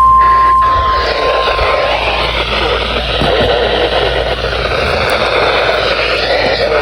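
NOAA weather radio's steady 1050 Hz warning alarm tone cuts off about a second in, then a loud hiss of radio static fills the rest.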